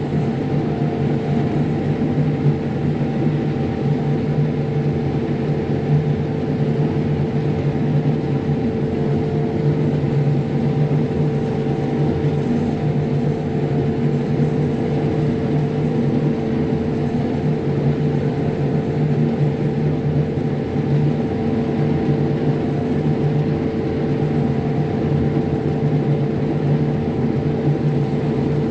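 John Deere S670 combine running steadily while harvesting corn: an even drone with several constant humming tones that hold unchanged throughout.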